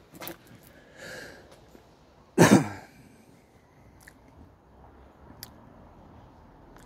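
A person coughing once, short and sharp, about two and a half seconds in, with a few faint ticks later on.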